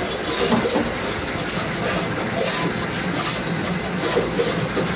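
Fuji SMT assembly-line machinery running: a steady mechanical hum with uneven high hissing pulses, two or three a second.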